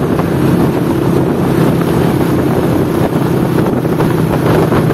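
Motorcycle engine running at a steady cruising speed, with wind buffeting the microphone.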